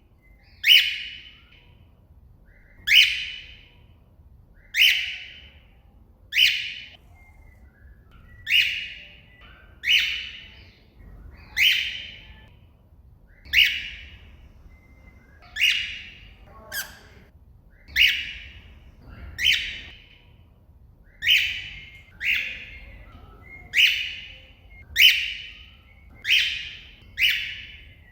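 Cockatiel giving loud, short contact calls over and over, about one every one and a half to two seconds, each a quick falling note: calling out to another bird.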